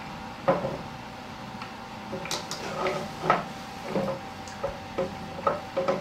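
Irregular metal clinks and knocks as a Power Smart DB7659A snowblower's friction wheel assembly and its shaft are handled and worked into place in the drive housing, about ten sharp knocks spread unevenly over the few seconds.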